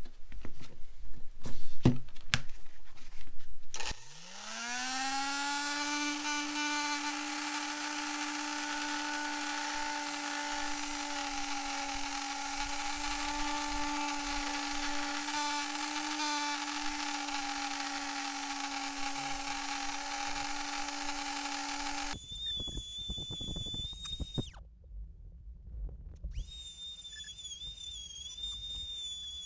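A few loud knocks, then a handheld rotary tool spinning up about four seconds in and running steadily while it burnishes a leather wallet's edges with a burnisher bit. Near the end the sound changes to a high, wavering whine that cuts out briefly.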